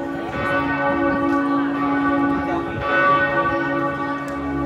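Church bells ringing: a fresh strike about every two and a half seconds, with long ringing tones held between strikes.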